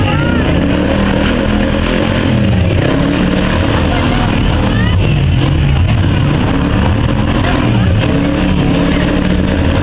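Several car engines running and revving in a demolition derby arena, their pitches rising and falling over a loud, steady rumble.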